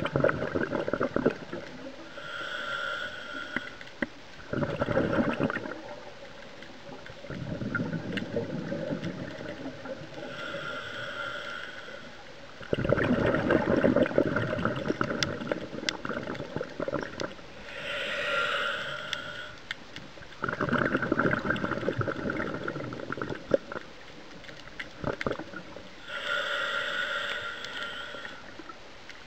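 Scuba diver breathing through a regulator, recorded underwater. Each breath is a short hissing inhale with a whistly tone, followed by a longer run of bubbling exhaust bubbles, about every eight seconds.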